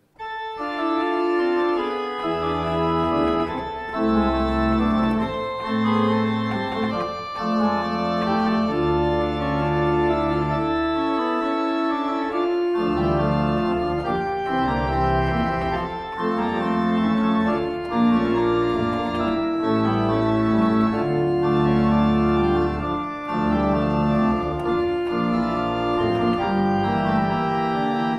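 Organ music: slow, held chords over deep bass notes, starting abruptly and changing every second or two.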